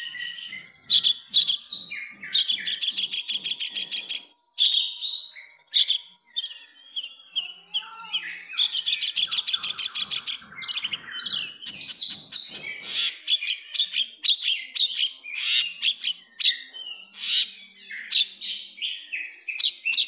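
Caged long-tailed shrike (pentet), tutored with pied triller (kapas tembak) song, singing a fast, chattering song of rapid repeated notes and trills with only brief pauses.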